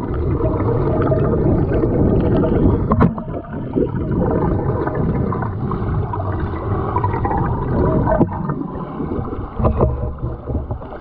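Muffled underwater churning of a swimmer's freestyle strokes and kick: rushing water and bubbling with scattered knocks, heard from below the surface.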